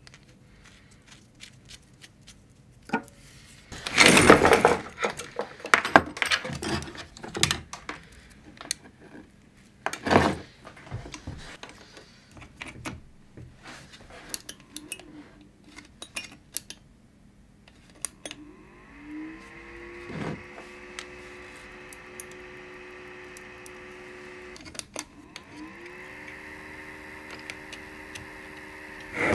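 Clicks and clatter of wires, connectors and small parts being handled on a workbench, loudest about four and ten seconds in. About two-thirds in, the laser module's small cooling fan spins up to a steady whir, cuts out for a moment, then spins up and runs again.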